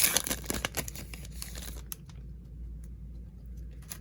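Plastic trading-card pack wrapper crinkling and tearing as it is ripped open. It stops about two seconds in, leaving faint clicks of cards being handled.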